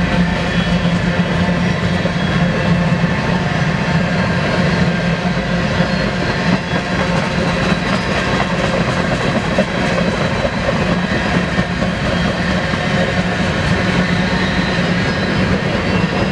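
Freight train rolling past steadily, with the noise of the cars on the rails and a constant low drone.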